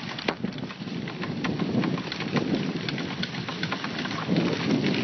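Dog sled moving fast over a snow trail behind a running dog team: a steady scraping, crackling hiss of the runners and paws on snow, over a low rumble that swells and fades a couple of times.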